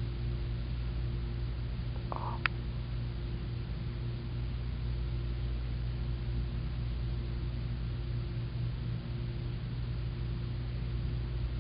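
Steady low hum of room tone with a faint hiss, broken once by a single sharp click about two and a half seconds in.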